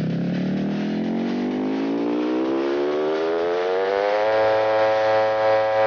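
A buzzy electronic tone in a DJ mix rises smoothly and steadily in pitch for about four seconds, then holds on one note: a riser sweep.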